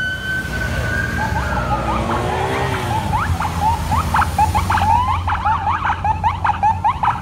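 Emergency vehicle siren: a held tone that slides down in the first couple of seconds, then switches to a fast rising yelp, about four sweeps a second, over a low engine rumble.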